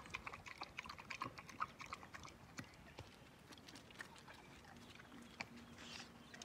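A dog eating from a bowl: faint, quick, irregular chewing and mouth clicks that thin out after about three seconds.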